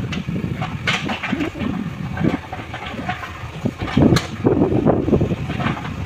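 JCB 3DX backhoe loader's diesel engine running and working the backhoe arm, its sound swelling and easing unevenly as the hydraulics take load. A sharp knock sounds about four seconds in.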